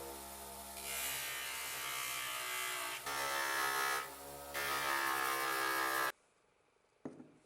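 Small handheld electric power tool running, its motor humming steadily while a louder grinding hiss comes and goes as it is worked against the piece. It switches off abruptly about six seconds in, followed by a single short knock.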